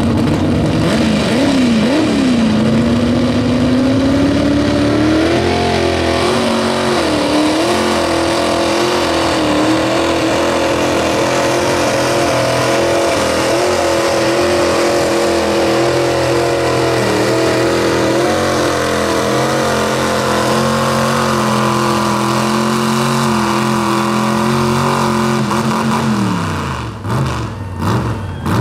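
Pulling pickup truck's engine at full throttle dragging a weight-transfer sled. The revs climb over the first few seconds, hold high and steady with small wobbles for about twenty seconds, then fall off unevenly near the end as the throttle lifts.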